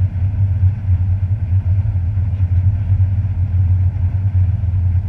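Toyota Tacoma pickup's engine running with a steady, loud low rumble.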